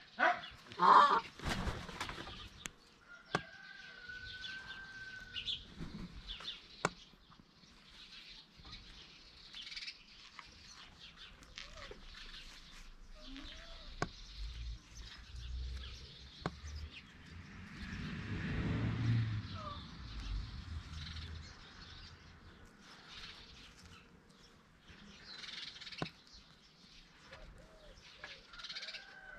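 Indian peafowl calling: two loud calls in quick succession right at the start, then a drawn-out higher call a few seconds later. The rest is a quieter stretch with scattered sharp clicks and soft low noise.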